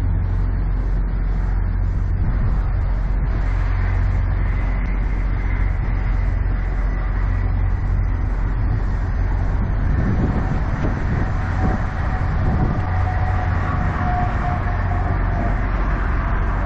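Diesel semi-truck engine idling steadily with an even low hum, a little rougher rumbling about two-thirds of the way through.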